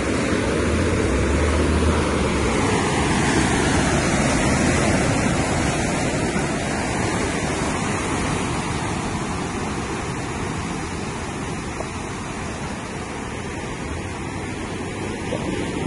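Ocean surf washing steadily against the shore, with wind rumbling on the microphone.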